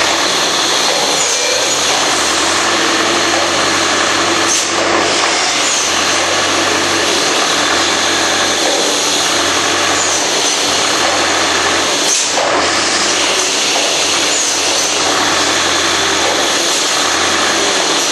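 Automatic board feeder with a vacuum suction-pad gripper running: a steady loud machine noise with a hiss, and a brief burst twice, about eight seconds apart, as it cycles through picking boards off the stack.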